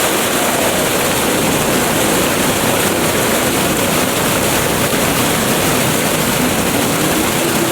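Wind blowing through rainforest trees: a steady, unbroken rush of wind noise.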